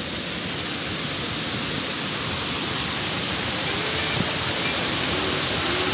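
Mountain creek rushing and splashing over rocks, a steady roar of water.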